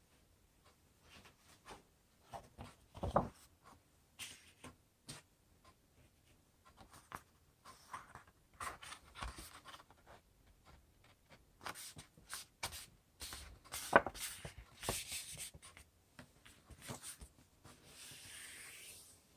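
A sheet of paper handled and folded by hand on a table: rustling and crinkling with small taps, two sharper knocks, and near the end a longer smooth rub as a fold is pressed flat.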